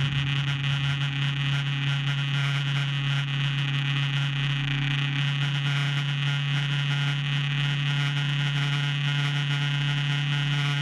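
Vehicle engine and tyres droning at a steady cruising speed inside a road tunnel: a constant low hum that holds one pitch throughout.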